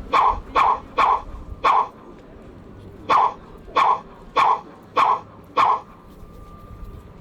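A person sneezing over and over in a comic fit: nine short, sharp sneezes, four in quick succession, then after a pause about a second long five more at an even pace.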